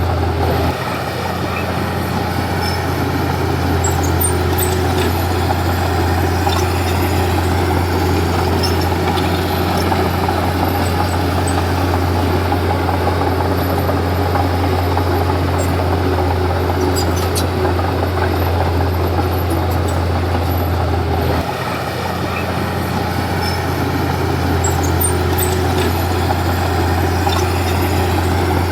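Komatsu D31P bulldozer's diesel engine running under load. It eases off briefly about a second in and again near the end, then builds back up, with a few faint clicks over it.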